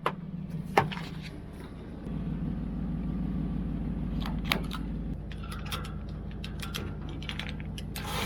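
A motor or engine runs with a steady low hum, with scattered clicks and knocks on top, the sharpest about a second in and near the middle.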